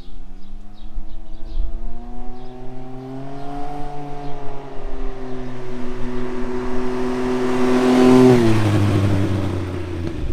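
Can-Am Ryker Rally three-wheeler, its Rotax 900 ACE three-cylinder running through an aftermarket RLS Echo Series exhaust, passing at about 40 mph. The engine pitch rises as it accelerates, then holds steady while growing louder. About eight seconds in it passes, the pitch drops and the sound falls away. The exhaust note is not loud.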